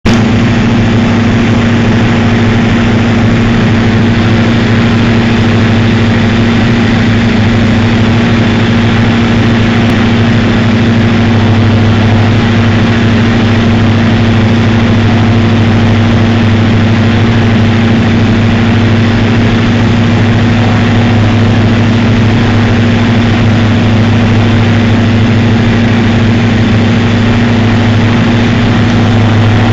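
Cessna 172's piston engine and propeller running steadily in flight, heard from inside the cabin as a constant low hum with an even hiss of airflow over it.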